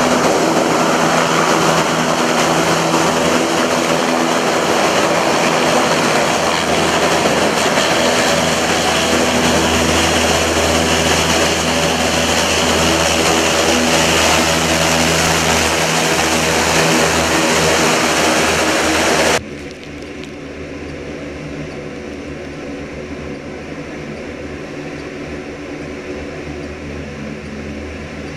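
LCAC air-cushion landing craft running at close range as it crosses the beach, a loud steady noise of gas turbines, lift fans and ducted propellers with several steady tones over a hiss of blown air and sand. About two-thirds of the way through it cuts off suddenly to a quieter, steady engine and water sound.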